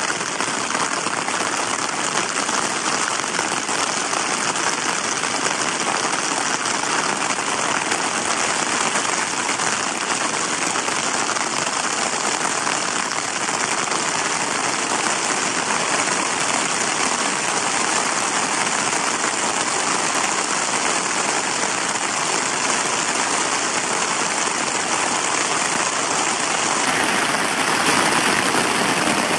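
Heavy rain falling steadily on a tent, a dense, even hiss at a constant loud level.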